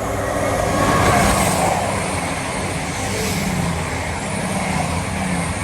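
Class 222 Meridian diesel multiple unit passing under power while accelerating up a gradient: its underfloor diesel engines drone steadily under the rush of wheels on rail, which is loudest about a second in.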